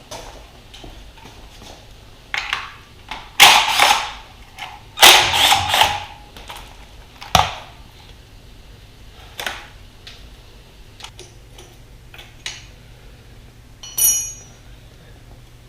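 Skid plate being unbolted from a Yamaha YZ250F dirt bike: scattered clicks, metal knocks and clattering from hand tools and bolts, loudest a few seconds in. Near the end comes a short ringing metal clink.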